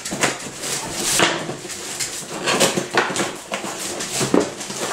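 Scissors cutting the tape on a cardboard toy box, then the box being opened, with cardboard and plastic packaging rustling. The sound comes as a run of short scraping strokes.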